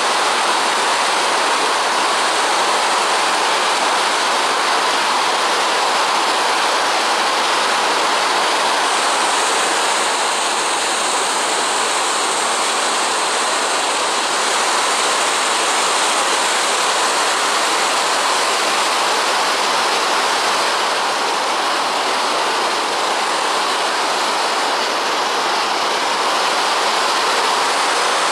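Big Cottonwood Creek flowing under a bridge: a loud, steady rush of water.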